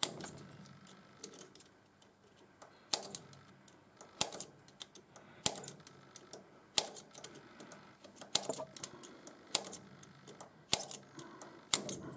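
Small spring-loaded automatic centre punch snapping repeatedly against the remains of a broken steel stud inside a hardened thread chaser nut. There are about ten sharp snaps, roughly one every second and a bit, with faint scraping ticks between them, as the stud fragments break up and are flicked out.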